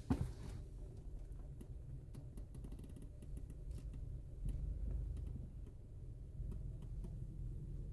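Low steady rumble heard from inside a car's cabin as it rolls through an automatic cloth car wash, with a single thump right at the start and a scatter of faint light ticks in the middle.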